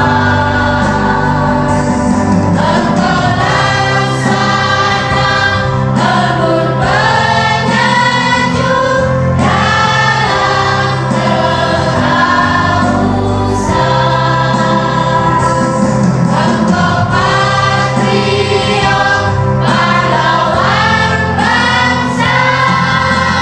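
A mixed choir of women and men singing a song together, with sustained low notes held underneath.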